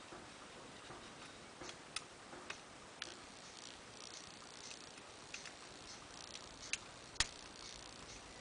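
Faint, irregular metallic clicks and light scratching of a short hook and tension wrench picking the pin tumblers of a 5-pin doorknob lock, with a few sharper clicks, the loudest near the end.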